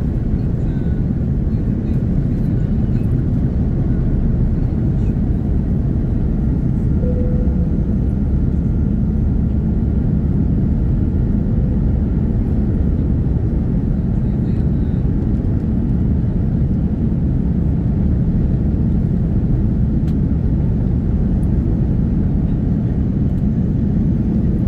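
Airbus A330's Rolls-Royce Trent 700 turbofans at takeoff thrust, heard from inside the cabin: a steady, low rumble as the aircraft lifts off and climbs.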